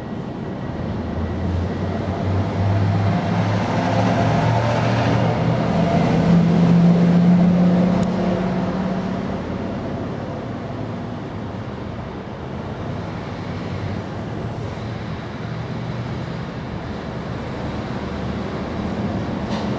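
A motor vehicle passing, its low engine hum swelling to a peak about seven seconds in and then fading into steady traffic noise.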